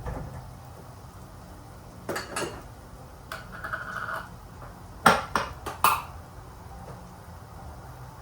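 Dishes and utensils clinking and clattering as kitchen work goes on. A couple of knocks come about two seconds in, then a short scrape, then a quick run of sharp clatters around five seconds in, the loudest of them. A low steady hum runs underneath.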